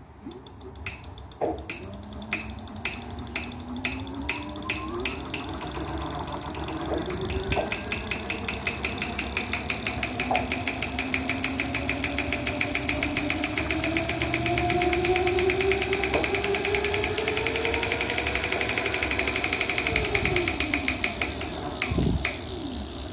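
A motor clicking once per turn: slow clicks at first, speeding up into a rapid ticking while its whine rises in pitch. Near the end the whine falls and the clicks slow again.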